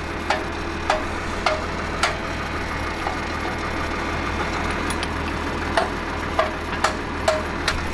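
About a dozen sharp metal-on-metal knocks at irregular intervals as the tractor's drawbar is knocked sideways into a new position, over a tractor engine idling steadily.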